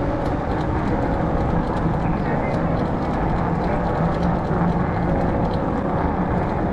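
Steady rush of wind on the microphone and rolling tyre noise from a fat bike ridden along a paved road, with a faint steady hum underneath.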